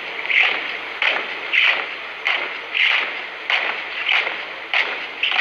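A troop marching in step: shoes and legs striking together in unison, a steady beat of roughly three footfalls every two seconds.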